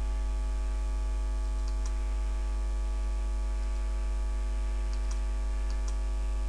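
Steady electrical mains hum with a stack of overtones, unchanging throughout, with a few faint short clicks about two seconds in and again around five seconds in.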